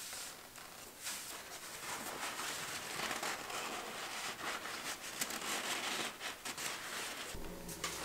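Blue paper shop towel crinkling and rubbing as it wipes out the countershaft seal bore in the engine case after the old seal has come out: a soft, continuous rustle with small crackles.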